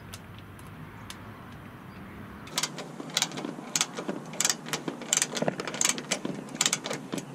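Ratchet spanner clicking in short irregular bursts, several a second, while the solar panel mounting bolts are tightened on the caravan roof rail. The clicking starts about two and a half seconds in.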